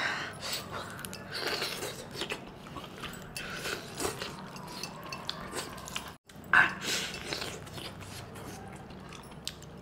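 Close eating sounds: mutton chops in gravy pulled apart by hand and chewed, in small, irregular wet noises. A brief break in the sound comes about six seconds in, followed by one short, louder sound.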